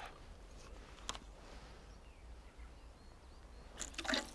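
A float-fished pike deadbait rig being cast out on a spinning rod and reel. There is a short swish about a second in, and near the end a brief, louder rush of noise as the line runs out and is feathered.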